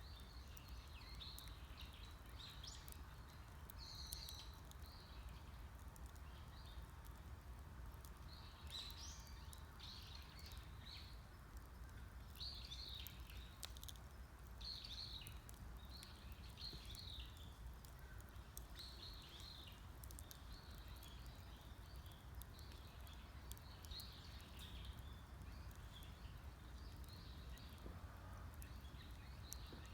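Small forest birds chirping in short repeated phrases over the faint crackle and occasional sharp pops of a wood campfire.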